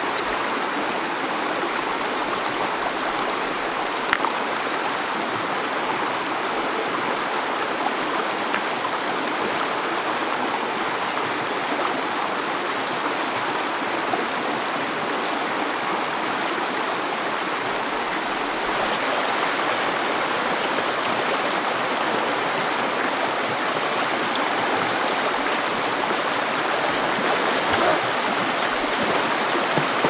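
A shallow, rocky stream flowing, giving a steady rush of water that gets a little louder about two-thirds of the way through. There is one sharp click about four seconds in.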